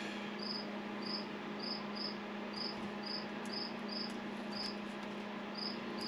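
A cricket chirping: short, high chirps about two a second at an uneven pace, over a steady low hum.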